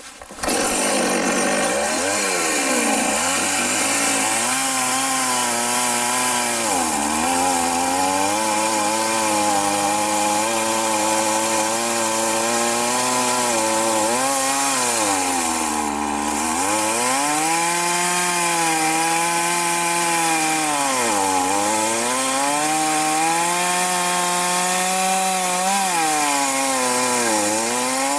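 Two-stroke chainsaw running hard. It starts abruptly about half a second in, and its pitch sags and recovers about five times as the engine bogs under load, typical of the chain biting into wood.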